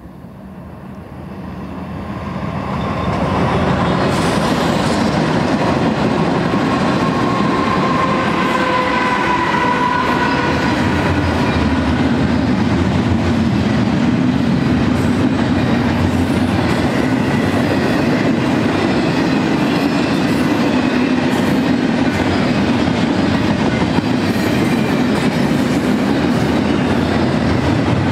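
BNSF double-stack intermodal freight train behind GE ES44 diesel locomotives, approaching and rolling past. The sound swells over the first few seconds as the head end nears, then settles into a steady loud rumble and wheel noise from the stack cars. A few thin high ringing tones come through about a third of the way in.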